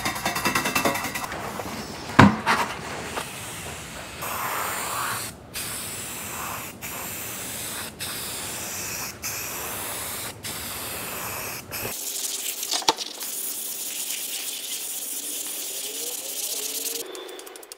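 Compressed-air paint spray gun hissing in a run of passes of about a second each, separated by short gaps, as the trigger is pulled and released. A sharp knock comes about two seconds in.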